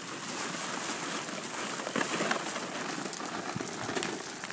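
Orange plastic sled being pulled across icy, crusted snow, scraping with a steady crackly hiss, mixed with crunching footsteps on the ice. A few sharper crunches stand out about two and four seconds in.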